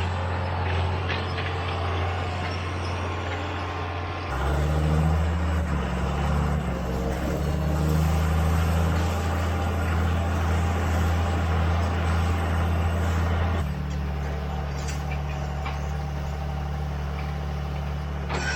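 Tractor engine running steadily while pulling a hay baler. About four seconds in, its note steps up and gets louder; about ten seconds later it settles back down.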